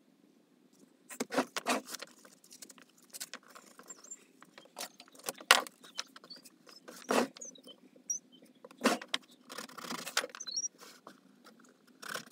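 Hands handling and knotting crafting rope on a wooden workbench: irregular rustles with light knocks and clicks, the loudest knocks about five and a half and seven seconds in.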